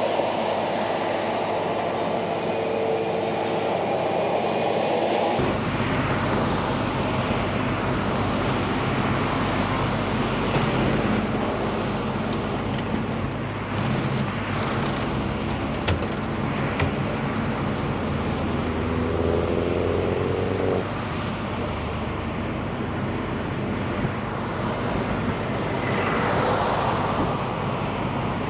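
Steady roar of motorway traffic passing close by, with a heavy engine running nearby. The sound changes abruptly about five seconds in, and a short rising whine comes about twenty seconds in.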